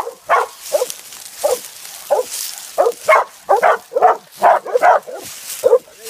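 Hog-hunting dogs barking in short, sharp barks, a few a second at first and coming faster and closer together from about halfway.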